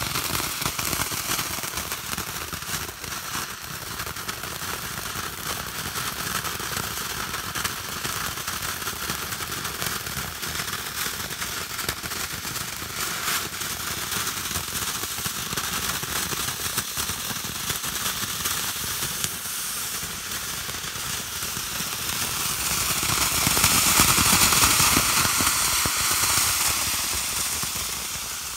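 Blue Fish firework fountain spraying sparks: a steady hissing rush dotted with fine crackles. It swells louder about three quarters of the way through, then eases off.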